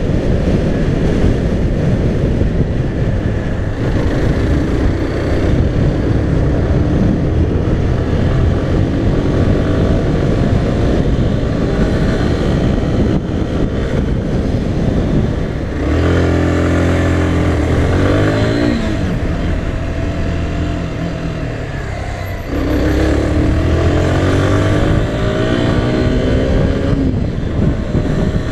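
SYM Wolf 125 motorcycle's single-cylinder engine running through city traffic, with wind rushing over the microphone. The engine pulls harder twice, about halfway through and again near the end, its pitch climbing as it accelerates.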